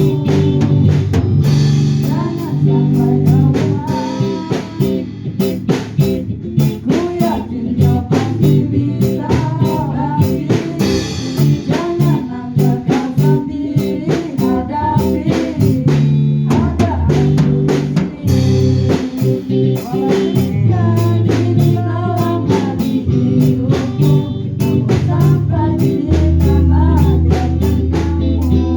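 Music: a song with guitar, drum kit and a bass line, with a bending melody line that may be a singing voice.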